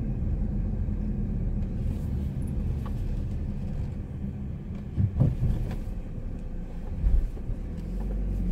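Hyundai Tucson driving slowly, heard from inside the cabin: a steady low rumble of engine and road noise, with short louder moments about five and seven seconds in.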